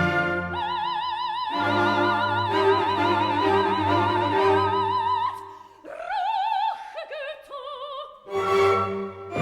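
Operatic singing with wide vibrato over an orchestral accompaniment. A high note is held for about five seconds, then shorter sung phrases follow while the accompaniment thins, and the orchestra swells again near the end.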